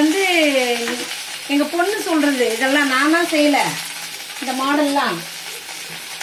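Bell pepper and onion pieces frying in a stainless steel pan on a gas stove, with a steady sizzle. Over the sizzle a woman's voice sounds in three drawn-out phrases with a wavering pitch, not in clear words.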